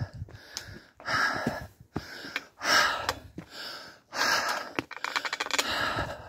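A hiker breathing hard while climbing a steep rock path: heavy breaths about every one and a half seconds. Between them come footsteps scuffing on rock and grit, with a quick run of clicks near the end.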